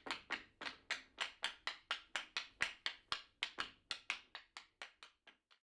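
Hockey stick blade tapping a Finnskills technique ball in fast stickhandling: a quick, even run of sharp taps, about four to five a second, fading out near the end.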